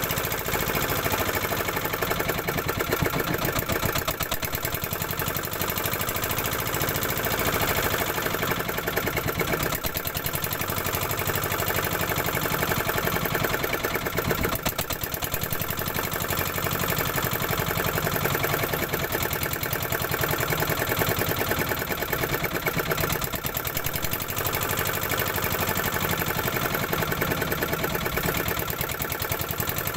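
Outrigger boat's engine running steadily under way, with rapid, even exhaust beats.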